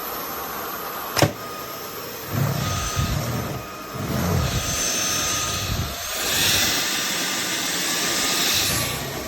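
AlloyMove cordless stick vacuum running with a steady, jet-like motor whine. There is a sharp click about a second in, low knocks over the next few seconds, and a louder rush of air from about six seconds until near the end.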